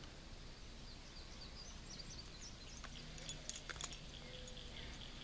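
Several sharp clicks close together about three seconds in, from a spinnerbait's wire arm, blade and hook being handled while it is worked out of a largemouth bass's mouth. Faint chirping in the background.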